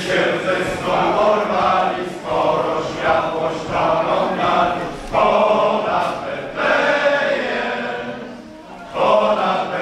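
Men's choir singing a Polish Christmas carol (kolęda) in short phrases with brief breaks between them.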